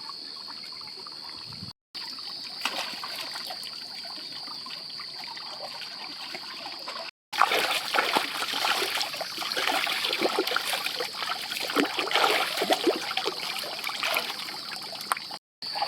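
Water trickling and splashing as someone works by hand in shallow water catching fish, louder and busier with splashes from about halfway in. A steady high-pitched whine runs underneath, and the sound breaks off briefly at two cuts.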